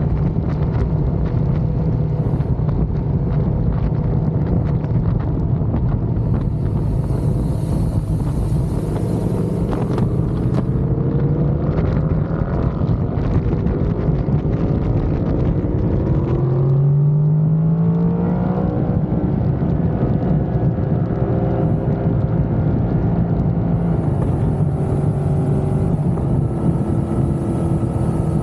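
Motorcycle engine running at road speed under heavy wind rush over the microphone. About two-thirds of the way through, the engine note rises steadily as the bike accelerates, then settles back to a steady run.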